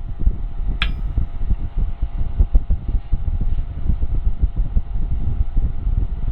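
Steady mechanical hum over a low, uneven rumble, with one sharp metallic click about a second in.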